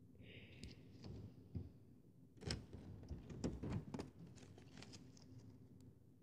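Faint, irregular clicks and crackles of clear-glue pearl slime being squeezed and stretched by hand, thickest about two and a half to four seconds in.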